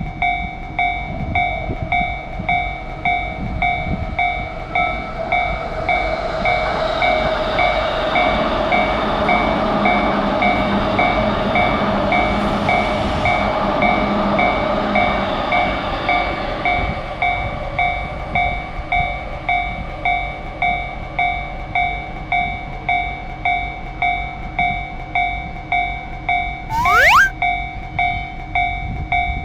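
Japanese level-crossing warning bell ringing in a steady, fast, even ding rhythm while a train runs past, its noise swelling and then fading away over the middle stretch. A brief rising sweep sounds near the end.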